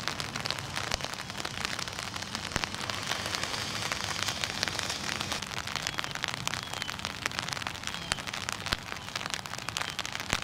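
Light rain falling on wet ground: a steady hiss dotted with many small drop ticks.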